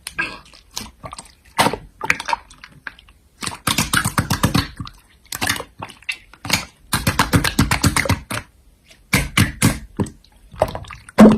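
Slime being pressed and squished by hand: runs of sticky clicks and small wet pops, coming in clusters with short pauses.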